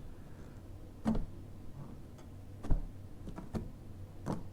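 A few light knocks and taps from a plasma-cut metal sign being handled and pressed down onto its double-sided tape, about five in all, the loudest a little under three seconds in, over a faint low hum.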